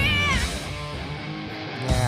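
Japanese hard rock from the music video playing, a female vocal note bending at the start over guitar and drums. The band then drops to a quieter stretch and comes back in full right at the end.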